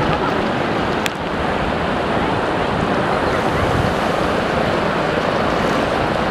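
Sea surf washing onto a beach: a steady, loud rush of waves, with wind buffeting the microphone.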